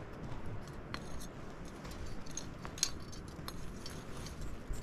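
Scattered light clinks and clicks of kitchenware being handled, over a low steady background noise.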